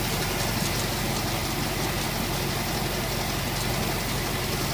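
1954 Trackmobile T2M car mover's engine idling steadily with an even, unchanging drone.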